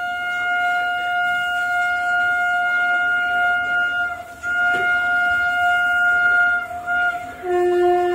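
Train horn sounding a series of blasts: one steady tone held about four seconds, a second blast of about two seconds, a short toot, then a lower, two-note blast near the end.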